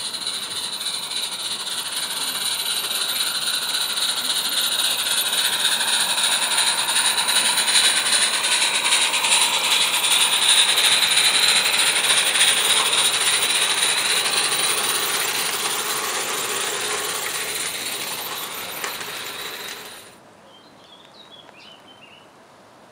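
A small live-steam garden-railway locomotive running past with its train, a steady steam hiss and rapid mechanical clatter that grows louder, peaks about halfway through and fades. About twenty seconds in the sound drops away abruptly, leaving faint bird chirps.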